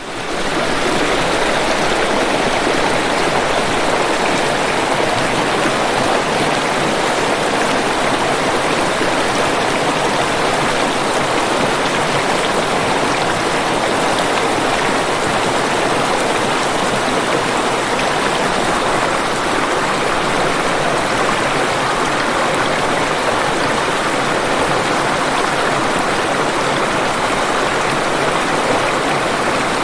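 Waterfall: a dense, steady rush of falling water with no breaks or changes, rising quickly out of silence at the very start.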